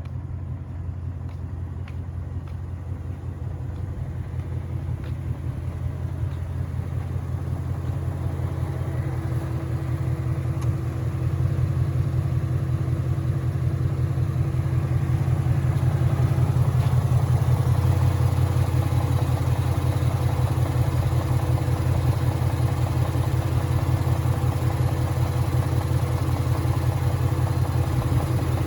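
2013 Ford Mustang GT's 5.0 Coyote V8 idling at a steady pitch with an even rhythmic knocking, getting louder over the first half and then holding steady. The owner takes the noise for rod knock and is unsure whether the crankshaft is giving out.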